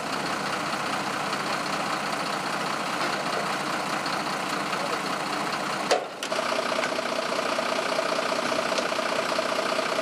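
Engines idling steadily, a constant mechanical drone. About six seconds in the sound drops out briefly with a click, then resumes with a steady hum added.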